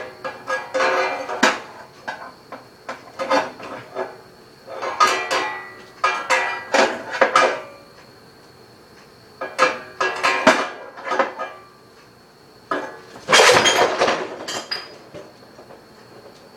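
A utensil clattering and scraping against a frying pan in about six irregular bursts, the loudest near the end, over a faint steady high-pitched tone.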